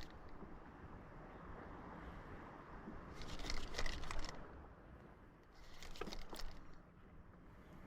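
Paddle strokes dipping into the water as a small boat is paddled: two swishing splashes about two and a half seconds apart, over a low steady rumble.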